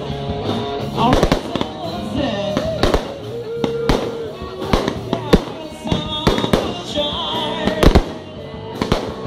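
Aerial fireworks display: shells bursting one after another in a run of sharp bangs and crackles, over music playing in the background.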